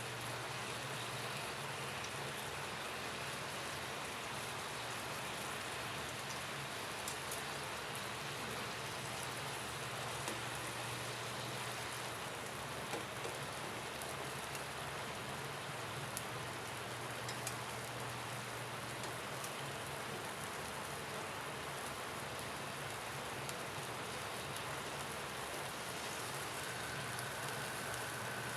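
Marinated pork frying in a little cooking oil, a steady sizzle with a few sharp pops and crackles.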